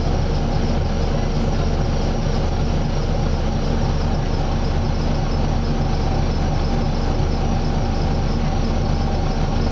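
Volvo B9TL double-decker bus under way, heard from inside the saloon: a steady drone from its six-cylinder diesel with the whirring 'hoover' sound of its engine cooling fan, over road noise.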